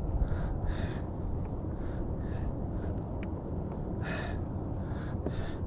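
Steady low wind rumble on the microphone over open water, with soft hissing puffs every half second or so and a louder one about four seconds in.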